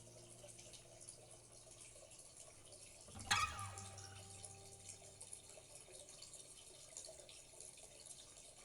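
Faint trickling, dripping water, with a single acoustic guitar strum about three seconds in that rings out and fades.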